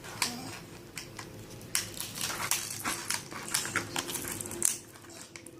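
Toy pieces and plastic packaging being handled: a quick run of clicks, crinkles and light knocks that stops shortly before the end.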